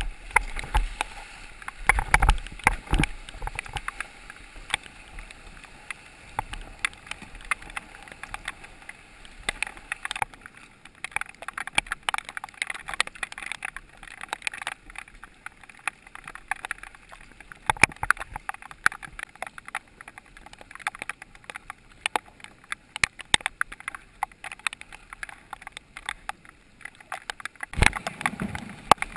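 Water drops tapping on the camera housing and the sit-on-top kayak's plastic deck in a dense, irregular patter of small clicks, over the swish and splash of paddle strokes, with a few louder splashes about two seconds in.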